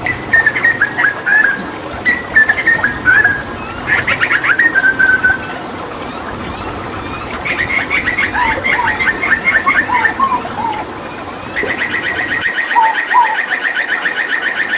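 Hooded butcherbird singing. It starts with short groups of quick, downward-slurred whistled notes, then about halfway it breaks into a fast run of repeated notes. This becomes a steady, rapid trill near the end, with a few lower two-note calls in between.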